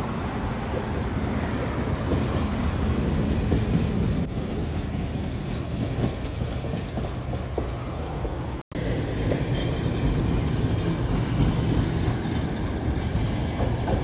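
Street traffic and 71-605 trams running past: a car and then a light truck on the road, and trams rolling along the track beside it. The sound cuts out for a moment a little past halfway.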